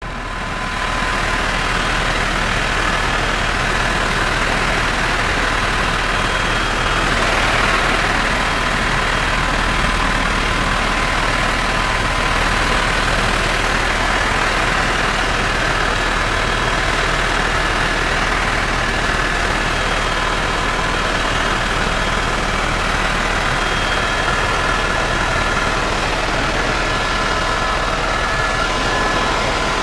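Steady machine noise: an even hiss over a low hum, with faint whining tones held throughout.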